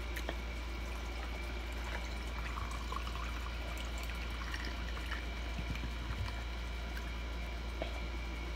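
Faint liquid sounds of a bottle of sparkling flavoured water being drunk from, over a steady low hum.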